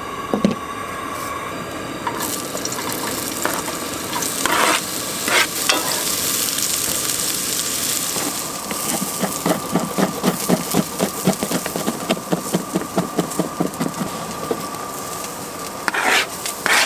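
Sliced onions sizzling in hot coconut oil in a skillet on a propane camp stove. The sizzle starts about two seconds in, and midway a wooden spoon stirs and scrapes the pan in quick strokes.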